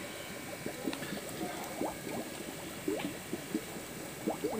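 Aeration tubes bubbling in a shallow fish tank: a steady run of small gurgling bubbles at the water surface.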